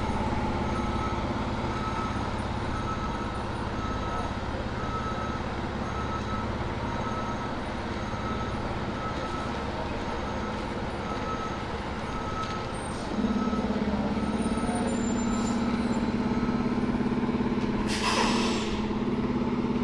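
Fire engine's diesel engine idling steadily, with a short electronic beep repeating about every 0.7 s. About 13 s in, the engine note steps up louder, and near the end the air brakes release with a loud hiss.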